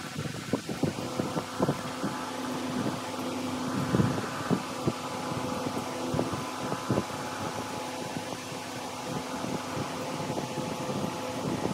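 Steady mechanical hum with a few held tones, under irregular soft bumps and knocks from handling.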